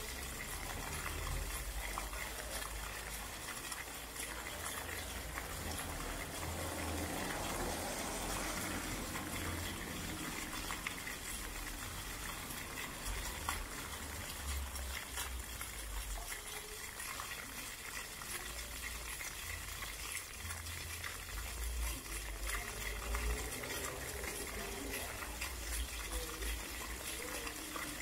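Floor fountain's water jets splashing steadily down onto wet paving stones.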